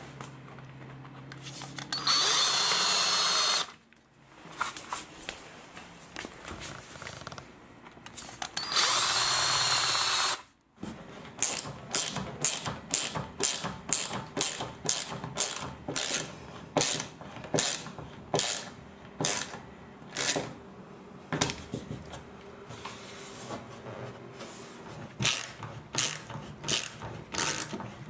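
A power drill runs in two short bursts while drilling holes. After that comes a long run of short, sharp strokes, about two a second.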